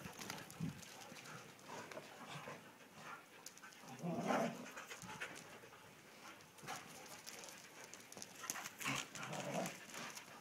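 Huskies and a black Labrador playing, with faint dog panting and a few louder short dog sounds about four seconds in and again near the end.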